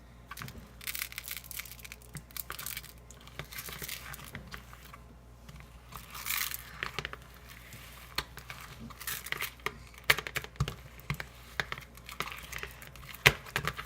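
Slime with raw rice grains mixed in being kneaded and stretched by hand, giving irregular crackles, pops and small squelches.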